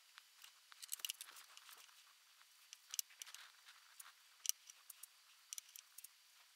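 Faint handling noises of staining small pine pieces: light clicks of the wooden pieces being picked up and set down on the bench, with soft scuffs of a brush and gloved fingers working dye onto the wood.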